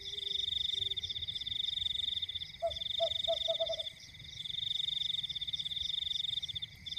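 Frogs calling: a continuous high, pulsing trill that breaks off and resumes every second or two, with a run of about five short, lower croaks a little before the middle.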